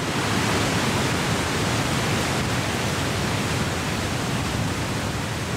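Wind blowing steadily through the leafy trees, an even rushing hiss.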